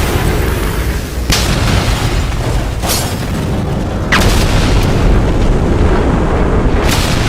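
Explosion and boom sound effects over a continuous heavy low rumble, with fresh blasts hitting about a second in, near three seconds and just after four seconds.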